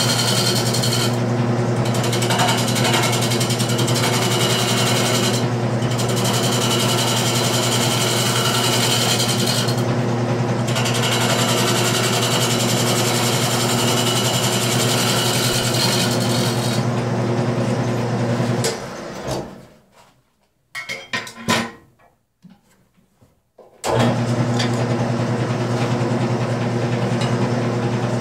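Wood lathe running with a steady motor hum while a turning tool roughs out a wet mulberry bowl blank, a continuous rushing cut broken by a few short pauses as the tool comes off the wood. About two-thirds of the way through, the sound drops out almost completely for several seconds, then comes back at once.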